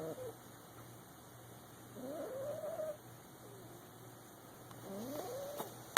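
Boxer puppy snoring in its sleep: each breath makes a rising, whining note about a second long, repeating roughly every two and a half seconds over a faint steady hum.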